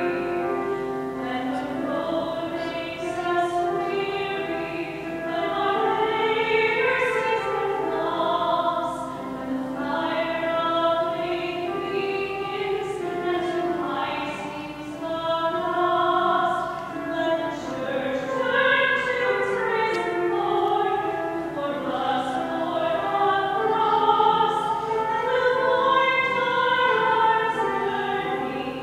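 A choir singing a hymn, several voices holding and moving between sustained notes together.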